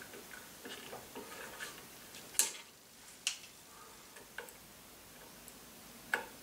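Irregular light metallic clicks and ticks as a hex key works the set screws of a timing pulley on a stepper motor shaft, fastening the pulley in place.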